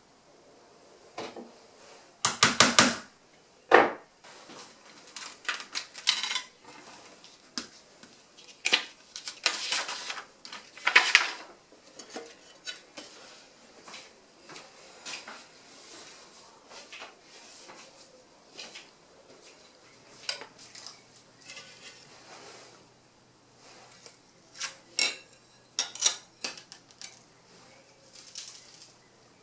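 Pieces of cut stained glass clinking and clattering as they are handled on a glass-topped light table, in irregular sharp clicks with a few louder clusters. A faint steady hum comes in about two-thirds of the way through.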